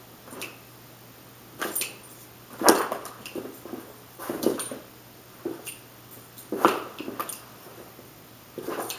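A miniature Australian Shepherd lunging and nipping at quickly moving hands, her prey-drive response to sudden movement. Short bursts of dog noises and scuffling come in irregularly about once a second.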